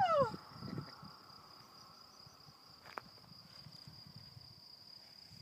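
Crickets chirring in one steady high-pitched drone, over a light low rumble of wind on the microphone. A shouted voice trails off at the very start, and a single click comes about three seconds in.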